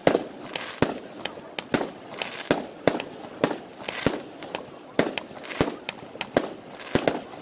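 A fireworks battery firing shot after shot, about two a second, each a sharp bang with a short crackling tail.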